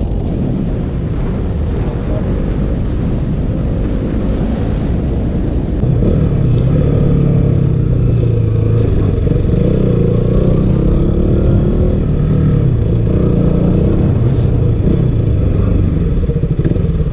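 KTM RC 200's single-cylinder engine running while riding, with wind on the microphone. About six seconds in the engine grows louder, its pitch rising and falling with the throttle.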